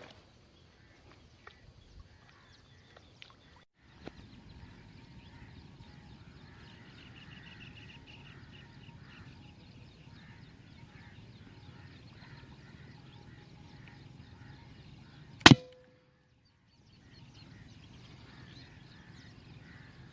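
A single sharp shot from a P15 PCP air rifle about three-quarters of the way through, with a brief ringing tail, over a low steady outdoor background.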